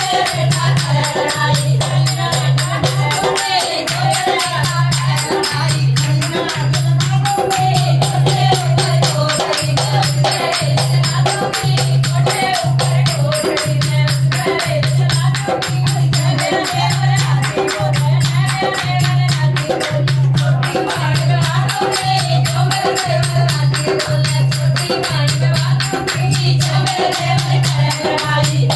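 Dehati folk song sung by a group of voices to a dholak, the low drum stroke falling steadily a little over once a second, with jingling hand percussion over the beat.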